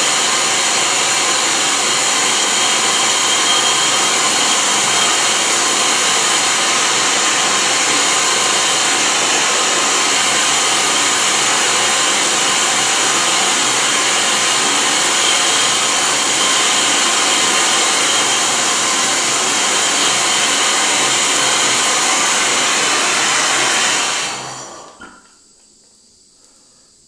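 Brazing torch flame hissing steadily while it heats an HVAC pipe joint for silver brazing. The torch is shut off near the end and the hiss dies away over about a second.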